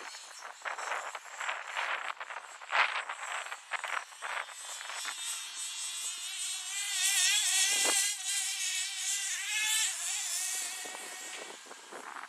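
Twin small nitro glow engines of a Hot Bodies Lightning GTX2 radio-controlled car whining as it drives, revving in short throttle blips at first, then held at a high, wavering pitch, then easing off near the end. A sharp knock stands out about three seconds in.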